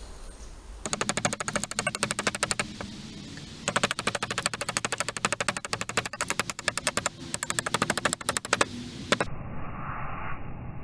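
Rapid, evenly repeated strokes of a hand tool working a split ash handle blank, in three runs with short breaks about three seconds and seven seconds in. Near the end they give way to a duller, muffled passage.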